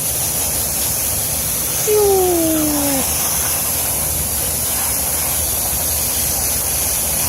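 Steady hiss of a water spray rinsing an HVAC rooftop unit's coil, washing out cottonwood fluff. About two seconds in, a short falling tone sounds over it for about a second.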